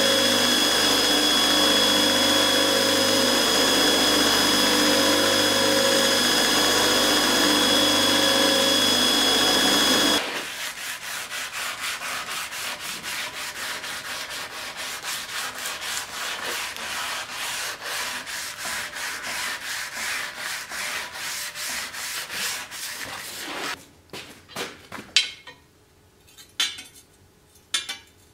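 Belt grinder running steadily with a constant whine, cutting off suddenly about ten seconds in. Hand sanding of a steel sword blade with an abrasive block follows: quick, even back-and-forth rubbing strokes. Near the end come a few sharp clinks of the steel blade against an anvil.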